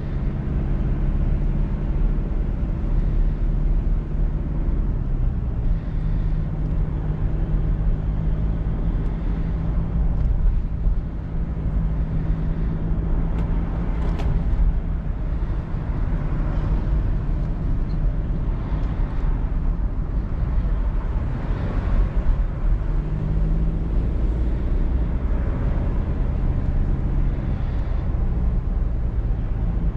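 Mercedes-Benz E220d cabriolet's 2.0-litre four-cylinder turbodiesel running on the move with the roof down, over steady road and wind rumble. Its note shifts up and down in pitch several times.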